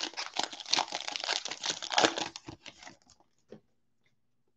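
Foil trading-card pack wrapper torn open and crinkled by hand for about two and a half seconds, followed by a few faint ticks of cards being handled.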